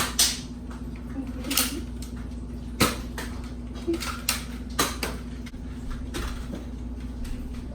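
Nerf gun fight: about eight sharp clacks and knocks at irregular intervals as blasters fire and foam darts strike walls and furniture, over a steady low hum.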